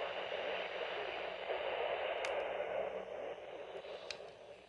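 Weather radio receiver hissing with static, with a steady low hum beneath and two faint clicks about two and four seconds in; the hiss thins out near the end.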